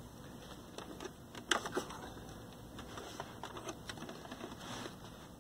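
Scattered light clicks and taps of hands handling a plastic portable TV cabinet, with a cluster of sharper clicks about one and a half seconds in.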